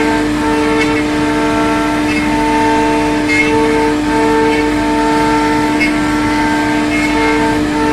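CNC router running while cutting wood: a steady spindle whine, with a second, higher whine from the axis drive motors that starts and stops every half second to a second as the cutting head moves.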